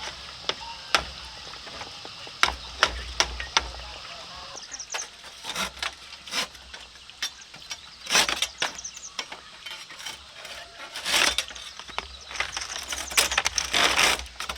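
Bamboo being worked by hand: several sharp knocks in the first few seconds, then rough rasping strokes that come more often toward the end.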